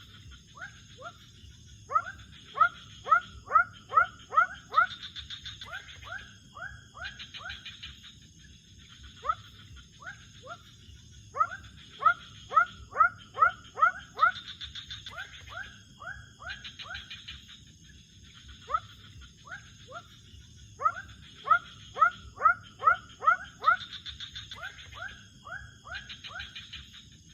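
Animal calls: short rising calls repeated two to three a second in runs of about eight to ten, with pauses between runs, over a steady high-pitched hum and a pulsing chorus.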